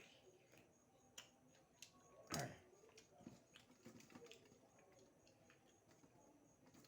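Faint mouth sounds of someone eating beef: scattered wet clicks and lip smacks, with one louder smack or slurp about two and a half seconds in.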